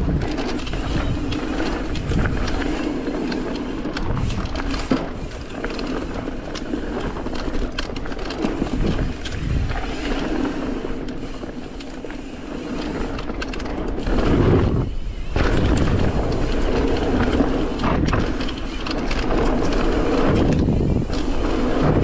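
Mountain bike riding fast down a dirt singletrack: tyres rolling and crunching over the trail, and the bike rattling and knocking over bumps. It gets louder about two-thirds of the way in, after a brief dip.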